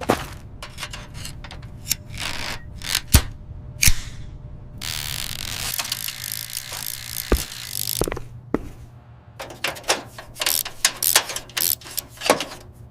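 Metal parts of a tin toy robot being handled and worked on by hand, with scattered sharp clicks and knocks. There is a brief hiss about five seconds in and a quick run of scraping strokes near the end.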